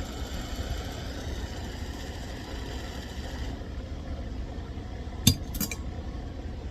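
Butane torch hissing steadily as it heats a quartz dab-rig banger, the hiss cutting off about three and a half seconds in. A sharp clink follows a little past five seconds in, with a lighter one just after.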